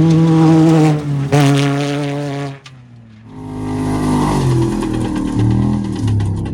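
Off-road race vehicle engine held at high, steady revs, with a brief lift about a second in, cutting off sharply about two and a half seconds in. After a short lull a second race engine comes in lower, its revs rising and falling.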